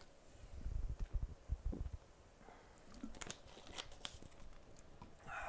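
Objects being handled on a workbench: a run of soft low bumps in the first two seconds, then a few sharp clicks.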